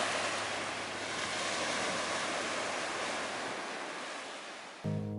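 Small waves washing up over the sand at the shoreline, a steady rushing hiss that fades down near the end.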